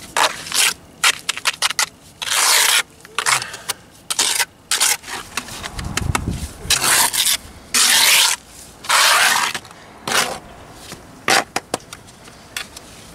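Mason's trowel scraping and smearing cement plaster across the face of a stone step, in many irregular strokes, some short and some longer sweeps, with a dull knock about six seconds in.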